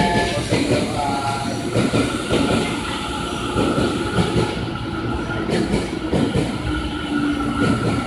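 Electric train at a station platform: a Tobu 50070-series train standing with its doors open, with a steady high whine and irregular rumbling and clatter. A public-address voice is heard briefly at the start.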